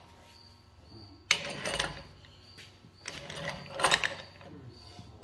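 Large pipe wrench turning threaded Schedule 80 pipe fittings tight: metal clicking and grating as the wrench bites and is reset on the fitting, in two bouts, about a second in and about three seconds in.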